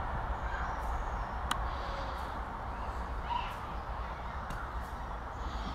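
Steady outdoor background noise over a constant low rumble, with one sharp click about a second and a half in.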